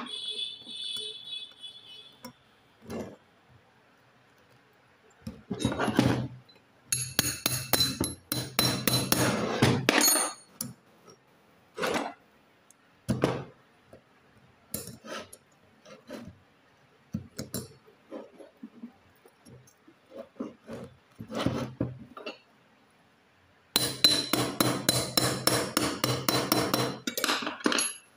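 Hand tools and metal parts clinking and knocking against a Hero Splendor Plus aluminium cylinder head as its camshaft is fitted, with a short metallic ring at the start. In the last few seconds comes a quick, even run of taps, about three a second.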